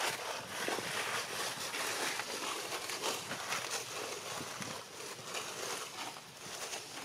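Dry leaf litter crackling and rustling: a busy run of small crackles over a steady rustle.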